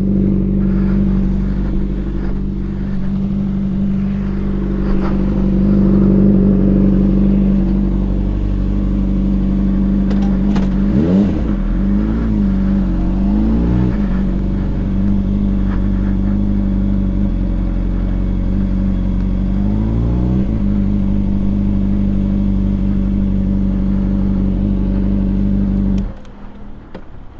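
Honda CBR600RR sport bike's inline-four engine idling steadily. It revs briefly a few times a little past ten seconds in and once more around twenty seconds, then cuts off suddenly near the end as it is switched off.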